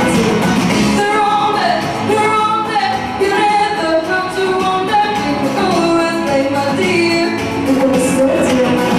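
A woman singing a pop song into a microphone over musical accompaniment.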